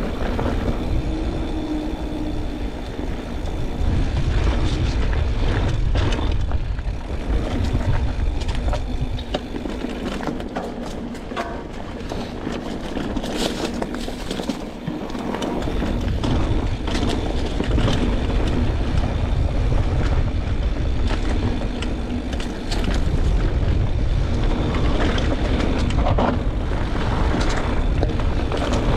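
Mountain bike descending a trail: a steady rush of wind buffeting the microphone over the rumble and rattle of the bike rolling over dirt and rock. Between about ten and fifteen seconds in the wind rumble drops and a string of sharp clicks and knocks from the bike comes through.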